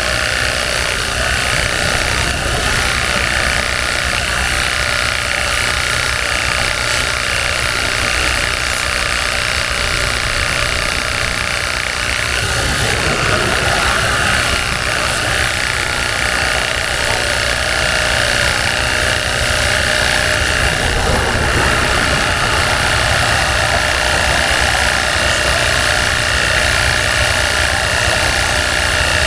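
Cordless Worx Hydroshot pressure washer running steadily, its battery pump whirring while the spray hisses against the truck's radiator grille, easing briefly about twelve seconds in.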